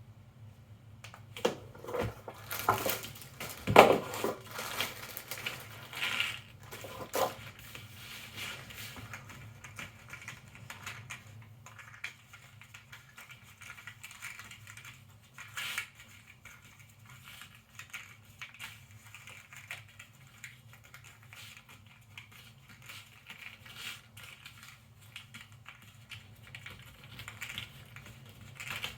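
Cardboard jigsaw puzzle pieces being handled on a table: a dense clatter and rustle through the first several seconds, loudest about four seconds in, then scattered light clicks and taps as pieces are moved one by one.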